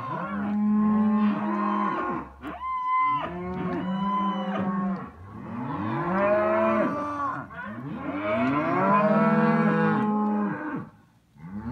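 Several young cattle mooing over one another, call after call with hardly a gap, and a short lull near the end.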